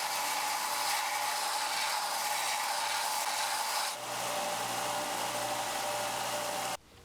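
Belt sander running as brass rod ends are ground on the belt, a steady grinding hiss over the motor's hum. It dips briefly about four seconds in and stops suddenly near the end.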